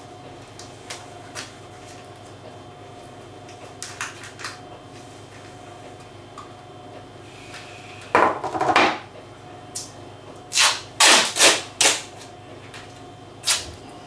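Wooden pieces handled on a workbench: a few light knocks, then a loud scraping rub about eight seconds in and a quick run of four short rubbing strokes, over a steady workshop hum.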